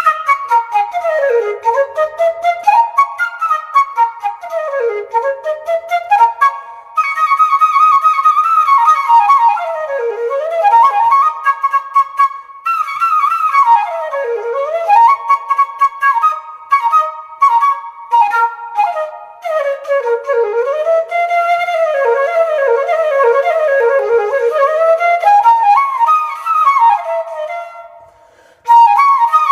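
Flute playing a fast, ornamented melody with frequent slides between notes. It breaks off briefly near the end and starts again.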